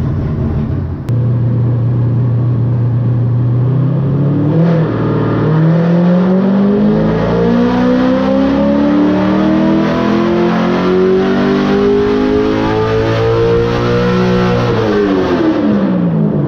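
C6 Corvette Z06's LS7 V8, fitted with an aftermarket cam and ported heads, making a pull on a hub dyno. It holds steady at low revs for a few seconds, then the engine speed climbs evenly for about ten seconds before the throttle is lifted and the revs drop near the end.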